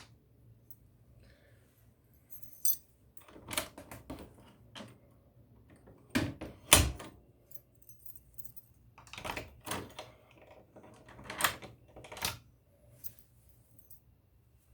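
Skeleton key turning in an old mortise lock: metallic clicks and clunks of the key, levers and bolt, in several short bursts. The loudest clunk comes about seven seconds in.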